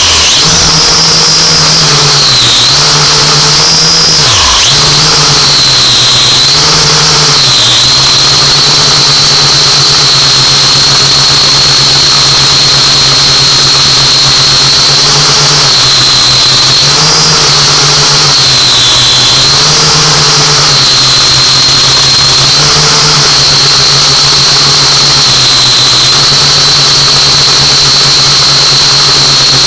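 A camera drone's motors and propellers whirring loudly, close to the microphone: a steady high whine over a low hum. The pitch dips briefly and recovers every few seconds as the drone adjusts its thrust while hovering, with one deep downward sweep about four seconds in.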